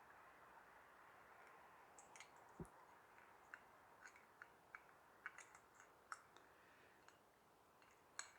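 Faint, irregular clicks and taps of small carburettor parts being handled and fitted: the float, its pin and the float chamber. A single dull knock comes about two and a half seconds in.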